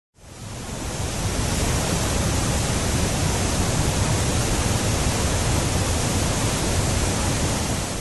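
Water rushing over the wide, low Tosna waterfall: a steady, even roar that fades in over the first second or so and starts to fade out near the end.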